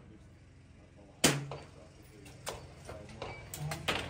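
A sharp gunshot-like bang on the range about a second in. Then a run of metallic clicks and clacks as the rifle's bolt is worked to eject the spent case.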